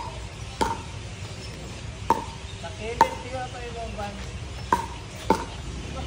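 Pickleball rally: sharp pops of the hollow plastic ball struck by paddles, about five in all at uneven intervals, each with a brief ring. Faint voices between the hits.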